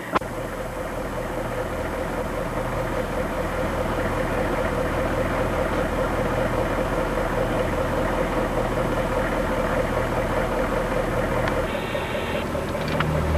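A vehicle engine running steadily, a constant drone that changes slightly in tone near the end.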